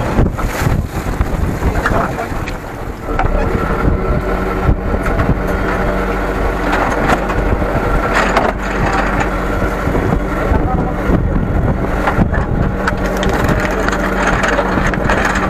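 Fishing boat's engine running steadily, with short knocks now and then and voices over it.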